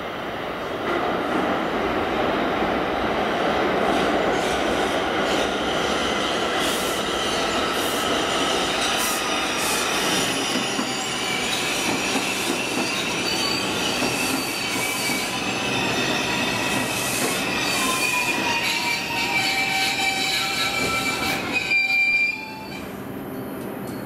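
Bombardier R142 subway train rolling along the rails with its wheels squealing. High squealing tones, some slowly falling, ride over the running noise in the second half, and the sound cuts off suddenly near the end.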